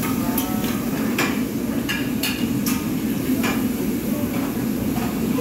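Metal spatulas clacking and scraping on a large round flat-top griddle as food is stir-fried, about half a dozen sharp clanks at uneven intervals. Under them runs a steady low hum.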